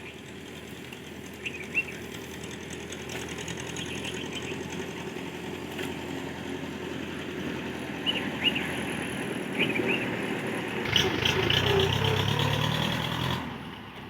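A motor engine running steadily, slowly growing louder, loudest near the end and then cutting off suddenly, with short bird chirps over it.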